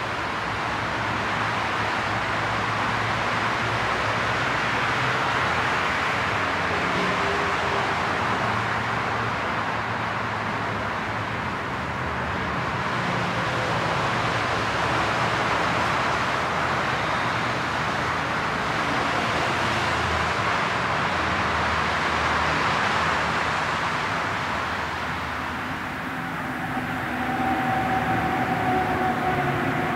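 Steady rushing noise of motorway traffic, slowly swelling and easing as vehicles pass. Near the end a faint, slightly falling whine joins it.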